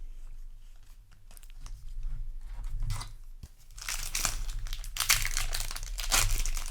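Booster pack wrapper crinkling and tearing as a Magic: The Gathering pack is opened, soft at first and much louder from about four seconds in.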